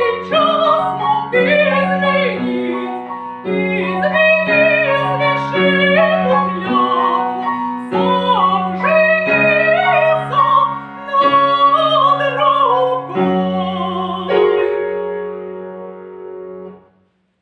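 A female voice singing a Russian folk song in a classical style, with piano accompaniment. The song closes on a held note that fades out near the end.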